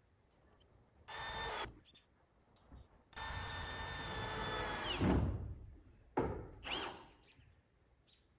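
Power drill driving screws into metal roof panels in three runs, the middle one the longest and winding down in pitch as it stops.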